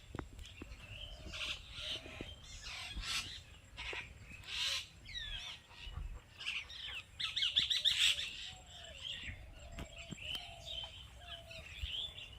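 Birds chirping and calling, with many short overlapping calls and pitch glides, and a fast trill just past halfway.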